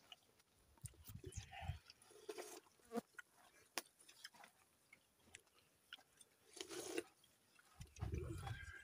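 Quiet sounds of people eating from metal bowls: scattered soft clicks and knocks, a sharper one about three seconds in, with a few brief faint murmurs.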